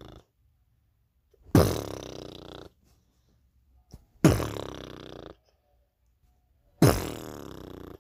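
Three identical edited-in sound-effect hits, each starting suddenly with a quick falling pitch and fading away over about a second, evenly spaced a little over two and a half seconds apart; the tail of a similar hit is dying away at the start.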